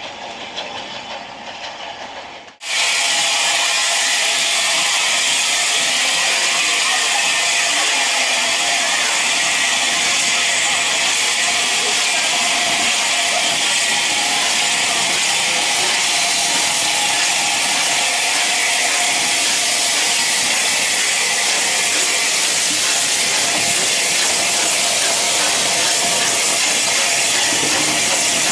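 A train running in on the rails, then, after a cut about two and a half seconds in, a loud, steady hiss of escaping steam from Southern Railway 'Battle of Britain' class steam locomotive No. 34072, with no chuffing beat.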